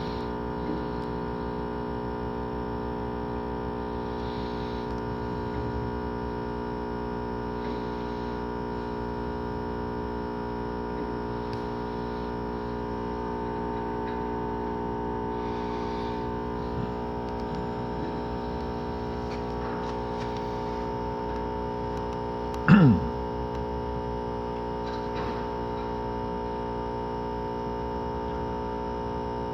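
A steady machine hum made of several fixed tones, with one brief, loud sound that falls in pitch about three-quarters of the way through.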